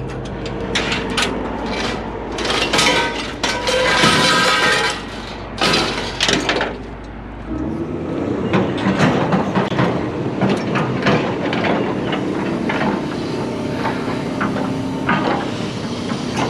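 Scrap metal clanking and banging as it is pulled and handled, many irregular knocks and clatters. Under it, a steady low engine hum runs until it cuts off about seven seconds in.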